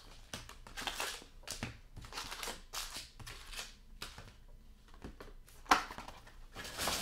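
Foil hockey card packs rustling and crinkling as they are pulled from an opened hobby box and set down in stacks on a table. There is an irregular run of short rustles and light taps, with one sharper knock a little before the end.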